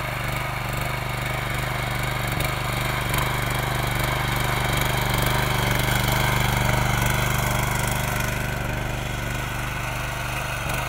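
The small engine of a walk-behind tractor (power tiller) running steadily under load as it tills dry soil.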